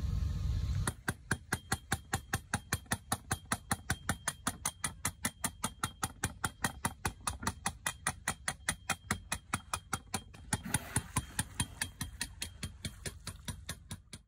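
A low rumble cuts off about a second in. A fast, regular clicking follows, about five clicks a second. About ten seconds in it turns sparser and noisier, then stops just before the end.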